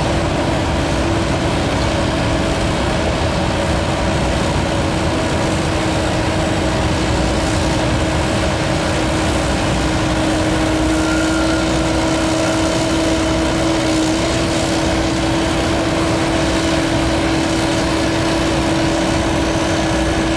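CAT 308E2 mini excavator's diesel engine running steadily as the machine works its boom and tilting bucket. A steady hum holds one pitch throughout.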